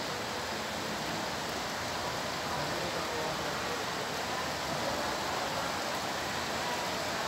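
Steady, even rushing noise of an oncoming rainstorm, with no gusts, breaks or single strikes.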